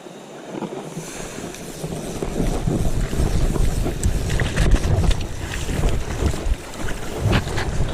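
Wind buffeting the microphone over flowing river water, the low rumble building up after about a second and staying loud.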